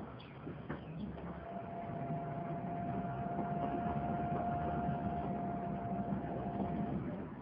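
A steady mechanical rumble, typical of a running vehicle, growing a little louder in the first two seconds. A single steady whine sounds over it from shortly after the start until near the end. A few clicks come near the start.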